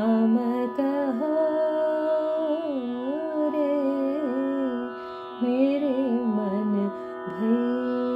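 Hindi devotional Ram bhajan music: an ornamented melody line sliding between notes over a steady drone, in phrases that pause briefly about five and seven seconds in.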